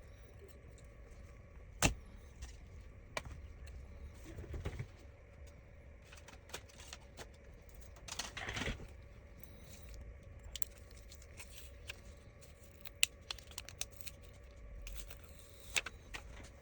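Faint scattered clicks and light taps of small tools and phone parts being handled during a screen repair, with a short rustle a little past halfway; the sharpest clicks come about two seconds in and twice near the end.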